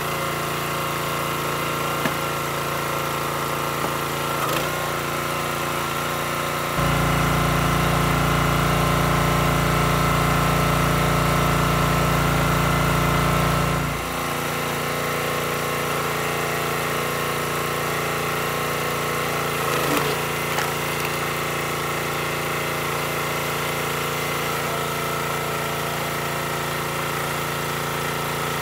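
Small gas engine of a hydraulic log splitter running steadily, with a few sharp knocks of wood. For about seven seconds, from about 7 s in, it turns louder and deeper, the engine working under load as the ram pushes through a round, then drops back to its steady running.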